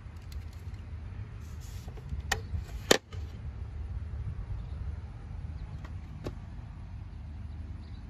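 Plastic flip cover of a Genie wireless garage door keypad snapped open: two sharp clicks about two and a half and three seconds in, the second the louder, and a fainter click later, over a steady low rumble.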